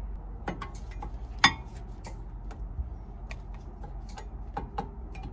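New front brake pad being worked into a TRW brake caliper carrier: a string of light, sharp metal clicks and taps, the loudest about one and a half seconds in.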